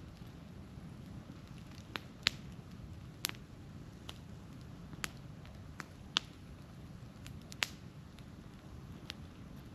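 Wood campfire crackling: irregular sharp snaps and pops from the burning firewood, a few of them louder, over a steady low background rush.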